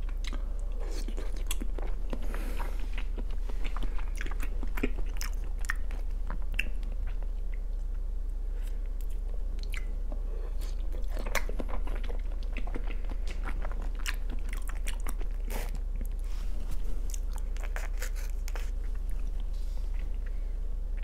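Close-miked chewing of raw salmon sashimi: wet, sticky mouth sounds with many small smacks and clicks as each slice is bitten and chewed.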